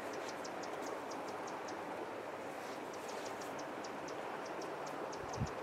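Steady outdoor riverbank ambience, a soft even rush of moving water and air, with a thin high ticking of about five ticks a second that comes in runs with short breaks.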